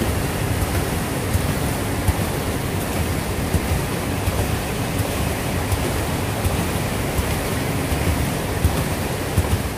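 Water rushing and splashing down through a turning reverse Archimedean screw hydro turbine, a loud steady rush.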